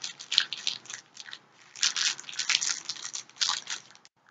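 Crinkling and rustling of mystery-mini packaging being handled and opened, in irregular bursts that stop about four seconds in.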